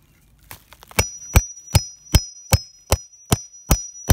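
Steel grommet-setting tool struck in a steady run of about nine blows, about two and a half a second, starting about a second in, driving a metal grommet into a tarp on a wooden block. Each blow gives a sharp knock with a high metallic ring.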